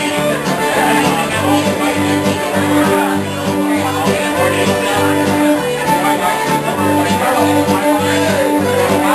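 Live Cajun band playing a dance tune, with button accordion and guitar over a steady low bass beat, and crowd chatter underneath.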